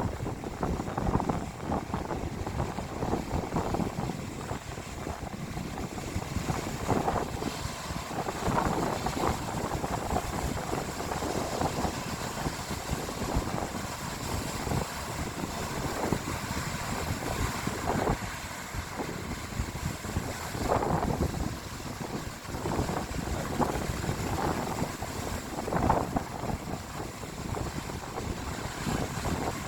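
Sea waves surging and washing in every few seconds, with wind rushing over the microphone.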